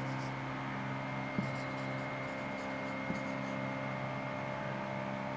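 Marker pen writing on a whiteboard: short runs of faint scratchy strokes as a word is written, with a couple of light taps of the pen on the board. A steady electrical hum runs underneath.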